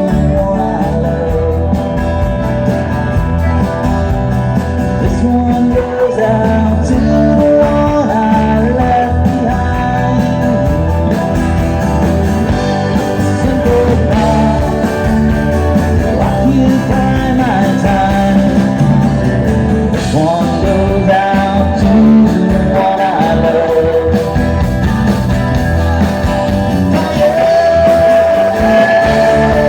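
A band playing a rock song live, with a singer.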